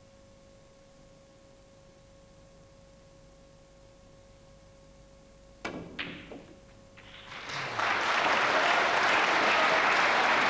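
A hushed snooker arena with a faint steady hum. About halfway through come the sharp clicks of the cue striking the cue ball and the balls colliding. A second or so later, audience applause swells and keeps going.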